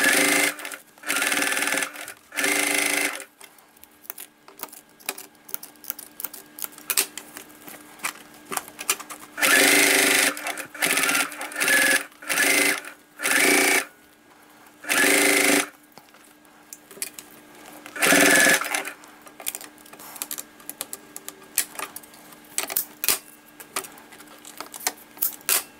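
Sewing machine stitching in about ten short bursts, stopping and starting, with small clicks and fabric rustles in the pauses and a longer pause between about four and nine seconds in.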